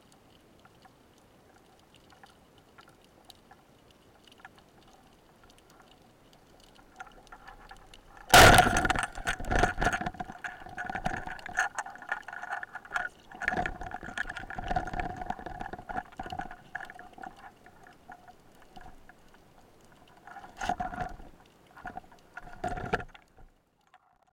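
Wooden band-powered speargun fired underwater about eight seconds in: a sudden, very loud crack. It is followed by irregular knocks and rattles over a steady ringing tone, which die away after about fifteen seconds.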